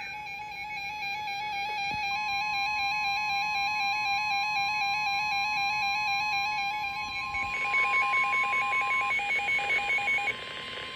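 Emergency alert attention tones: a warbling electronic tone switching rapidly between two pitches, joined about two seconds in by a steady higher tone. About seven and a half seconds in it turns into a louder, fast-pulsing tone that stops shortly before the end. It signals that an emergency alert message is about to follow.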